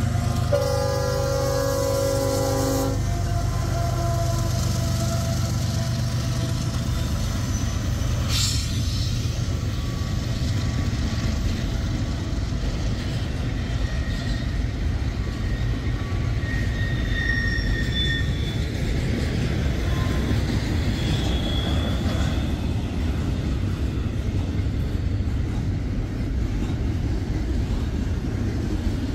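Canadian Pacific diesel locomotive sounding its horn, a chord that cuts off about three seconds in. Then the rumble of the double-stack container train rolling steadily past, with a few brief high squeals near the middle.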